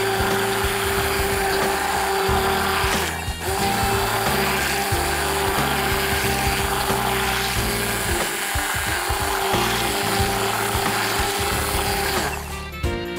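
Stainless-steel immersion blender running steadily with a constant motor whine, its blade churning a liquid mango-and-milk mixture into froth in a glass bowl. It dips briefly about three seconds in, and the motor stops near the end.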